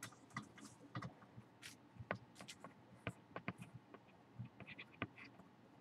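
Faint handling noise: irregular small clicks, taps and light scrapes of gear being moved and adjusted close to the microphone, with a few sharper knocks about two, three and five seconds in.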